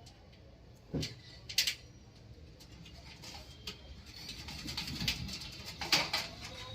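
Small metal clicks and knocks of motherboard standoff screws being fitted into a steel PC cabinet panel, with sharper knocks about a second in and again near the end.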